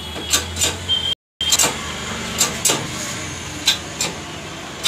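Sharp metal clicks and taps, mostly in pairs, from steel parts being set and tapped onto a scooter's one-way clutch bearing on a workbench. The sound cuts out completely for a moment about a second in.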